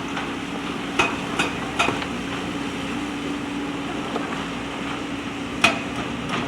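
JCB backhoe loader's diesel engine running steadily, with sharp knocks from the machine working: three in quick succession about a second in and a louder single one near the end.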